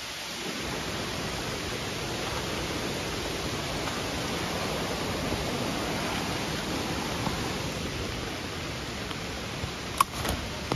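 Steady rush of a creek running high after heavy rain, easing slightly near the end, with a couple of sharp clicks near the end.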